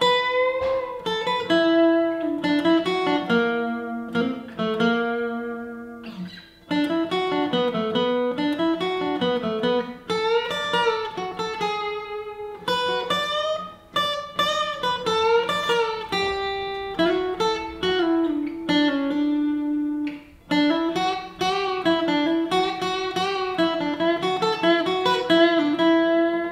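Solo acoustic guitar playing a melody of picked notes over chords, with short breaks between phrases about every six or seven seconds.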